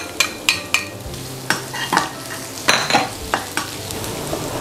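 Shredded young ginger frying in hot oil in a nonstick wok, sizzling as a metal spatula stirs it, with a run of sharp clicks and scrapes of the spatula against the pan. The hot oil is cooking the raw ginger.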